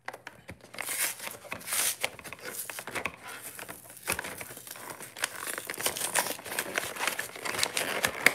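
Cardboard and clear plastic packaging of a Pokémon Champion's Path collection box being handled and pried open: irregular crinkling and rustling with many sharp clicks.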